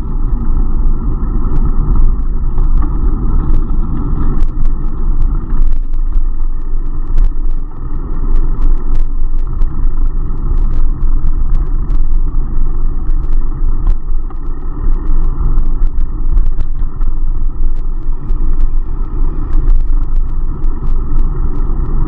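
Steady rumble of wind and road vibration on an action camera's microphone while riding a bicycle, with many small rattling clicks scattered through it.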